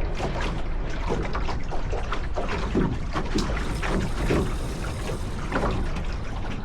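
Wind buffeting the microphone over water splashing and rushing along a sailboat's hull, steady and irregular throughout.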